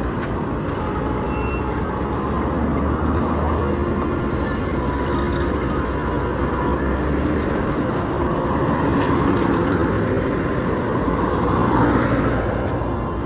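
Road traffic: vehicle engines and tyres running steadily with a low rumble, swelling as a vehicle passes close near the end.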